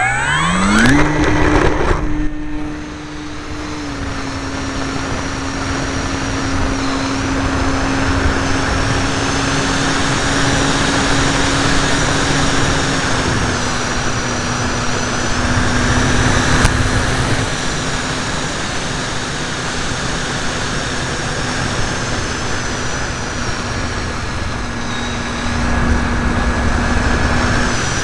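Electric motor and propeller of a ParkZone T-28 radio-controlled model plane, heard from a camera mounted on the airframe. The motor winds up to full throttle in about a second, then holds a steady droning buzz in flight, with a faint high whine above it and wind rushing over the microphone.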